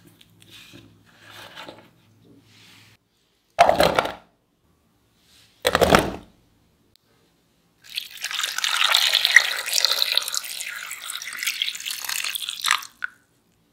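Water poured in a stream into a small saucepan of diced raw potato cubes, a steady splashing pour of about five seconds that ends with a last splash. Before it come two short, loud clatters a couple of seconds apart, and faint handling sounds.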